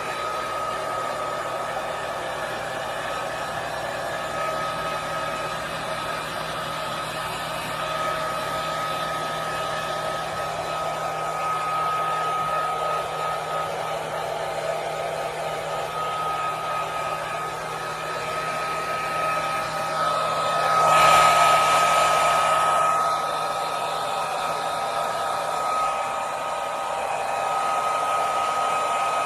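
Hand-held hair dryer running steadily, a rushing blow with a constant high whine. It swells louder for a couple of seconds about two-thirds of the way through.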